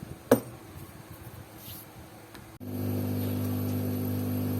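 A single sharp click, then a steady machine hum that starts abruptly about two and a half seconds in and holds one even pitch.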